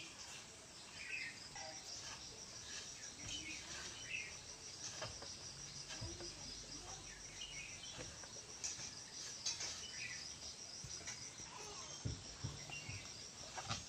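A faint, steady, high-pitched insect trill in fast, even pulses, under soft scattered scrapes and rustles of fingers rubbing flour crumbs against a ceramic plate.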